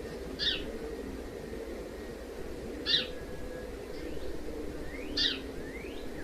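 A bird calling: three short, high chirps about two and a half seconds apart, with a few faint rising whistles between them, over a steady low hum.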